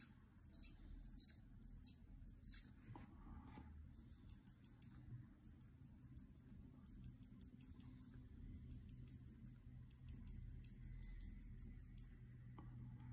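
Copic alcohol marker nib squeaking on paper in short, quick strokes. A few louder squeaks come about every half second in the first three seconds, then a fainter stream of small rapid ones.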